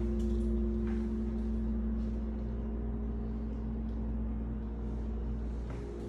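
A steady low hum of several unchanging tones over a low rumble, with a few faint knocks, about a second in and again near the end.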